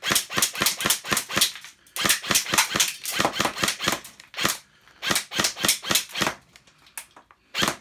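Airsoft rifle fired rapidly on semi-auto, about five or six shots a second, in strings with short pauses between them. Near the end the shots thin out to a few.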